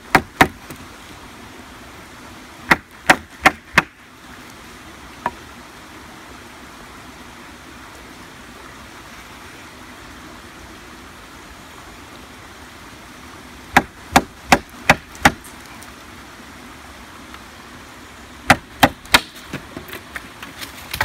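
Wooden baton striking the spine of a full-tang bushcraft knife to drive the blade through a branch (battoning): sharp knocks in quick runs of three to six strokes, with long pauses between the runs.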